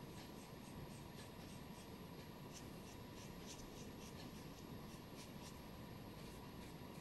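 Faint strokes of a small paintbrush working paint onto the inside of a small cup: short soft swishes at uneven intervals.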